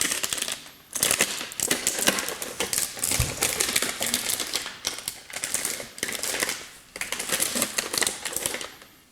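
Plastic packaging film crinkling and rustling as it is handled and pulled off, in bouts of rapid crackling broken by short pauses.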